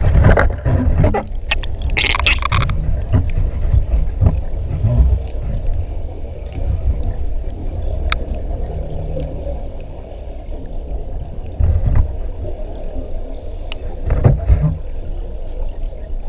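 Muffled underwater water noise: a steady low rumble of water moving around the camera, with splashing and bubbling bursts in the first few seconds and again near the end.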